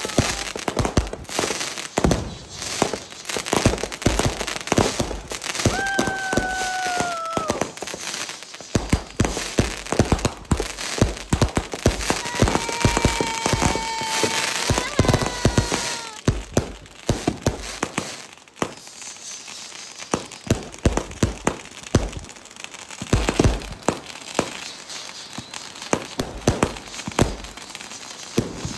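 Consumer fireworks going off: a dense string of bangs and crackling pops from aerial shells and cakes, with two high whistles, each about a second and a half long, around six seconds in and again near the middle. The bangs thin out over the last third.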